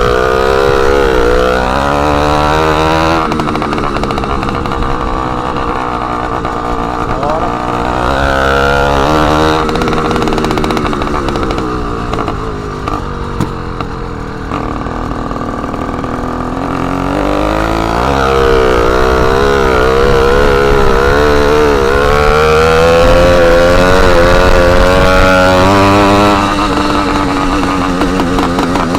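Small two-stroke engine of a motorized bicycle running with its exhaust end piece removed, so it is loud and raw. The engine speed rises and falls as it is ridden, easing off in the middle and then revving up again.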